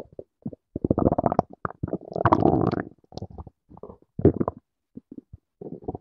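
A hungry man's stomach growling and gurgling in irregular bursts with silent gaps between. A longer rumble comes a little after two seconds in, with shorter gurgles after it.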